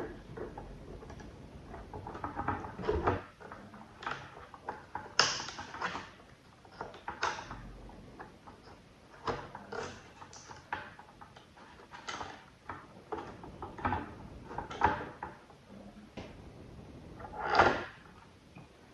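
Irregular handling sounds of small objects being moved and worked by hand: scattered clicks, light knocks and short scrapes, with one louder, longer scrape near the end.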